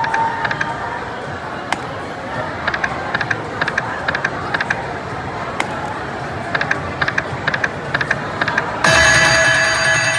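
Crazy Coin video slot machine playing its spin sounds: short runs of quick electronic ticks as the reels spin and stop, over a background of casino voices. About nine seconds in, a loud electronic fanfare of several held tones starts as a bonus feature triggers across the reels.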